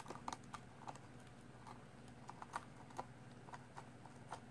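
Faint, irregular light clicks and ticks of a screwdriver working small screws out of a Bose Cube speaker's driver mount.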